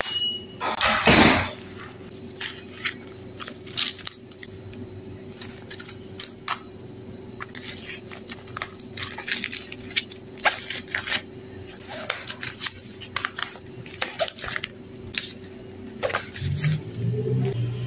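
Handling of a new zippered wallet during unboxing: a loud rustle about a second in, then scattered clicks, taps and small rattles as the wallet, its zipper and flaps are worked by hand.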